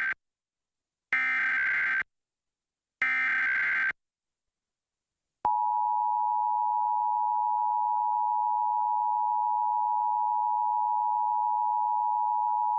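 Emergency Alert System header: the last two of three SAME digital data bursts, each a harsh screech about a second long with a second of silence between. After a short pause, the steady two-tone EAS attention signal starts about five and a half seconds in and holds, announcing the nationwide test message.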